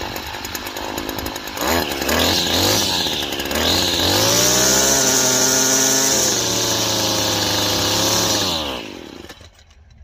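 Gas string trimmer's small engine running unevenly, then revved to a high, steady speed from about four seconds in, before it dies about nine seconds in. The owner says it wasn't wanting to run very well.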